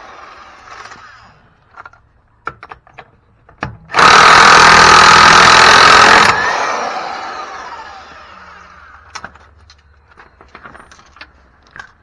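Impact wrench run in one loud burst of about two seconds, about four seconds in, spinning a wheel lug nut loose; its pitch falls as it winds down after release. Scattered light metal clicks and clinks of the socket and lug nuts come before and after.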